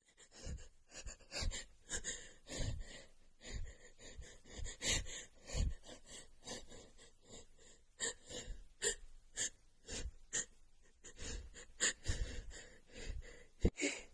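A woman's repeated short gasping and sniffling breaths during a sneezing fit, her nose runny from cold air and dust.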